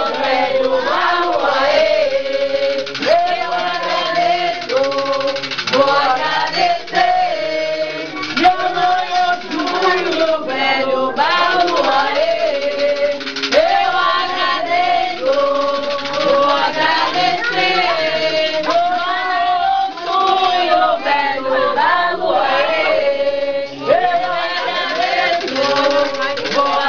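A group of voices singing an Umbanda ritual chant together, a melody of long held notes repeated phrase after phrase.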